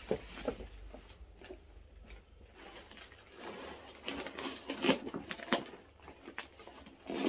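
Cloth dust bag rustling and a leather tote bag being handled as it is slid out and lifted, a run of irregular soft rustles and light knocks.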